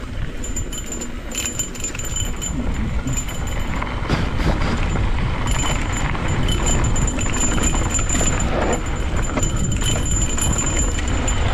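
Cannondale Scalpel carbon full-suspension mountain bike riding fast down a rough dirt trail. Wind rushes over the mic, the bike rattles, and tyres knock over bumps, growing louder a few seconds in.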